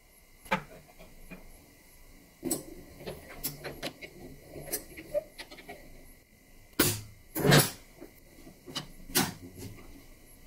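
Antique hand-operated potato peeler's rusty cast-iron lever, guiding screw and coil spring mechanism being worked by hand: a series of metallic clicks and clacks, the loudest knocks a little after the middle.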